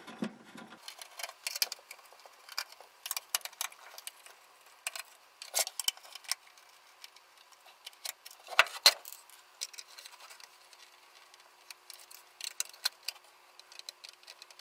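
Small scattered clicks and scrapes of a screwdriver working the little screws out of a power supply's sheet-metal case, with a couple of louder knocks about two-thirds through as the metal case is handled and turned.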